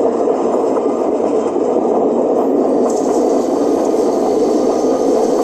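Model train passenger cars rolling along the track past the camera: a steady rumble of metal wheels on rail, with a faint added hiss of wheel noise from about three seconds in.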